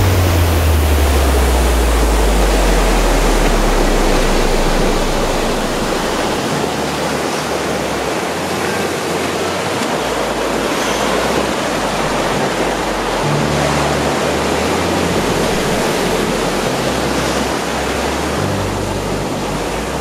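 Ocean surf washing steadily, with background music whose low bass notes hold and change every few seconds.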